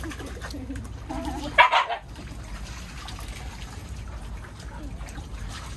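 A dog gives one short, loud bark or yelp about a second and a half in, amid the splashing and sloshing of several dogs wading in a shallow pool of water.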